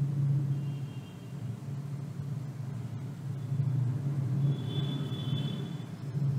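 Soya chunk curry boiling hard in a cast-iron pan on a stove, a low, steady rumble.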